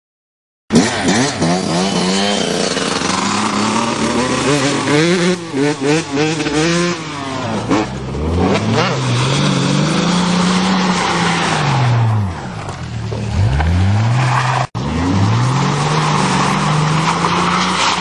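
Car engine revving hard, its pitch rising and falling again and again, over the rushing noise of spinning wheels throwing mud and dirt. It starts less than a second in, after a short silence.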